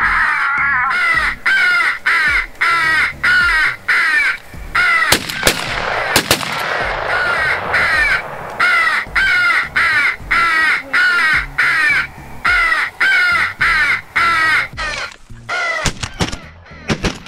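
Crow calling: harsh caws repeated steadily about two a second, broken by shotgun blasts, a pair about five seconds in and a few more in quick succession near the end as crows fly over.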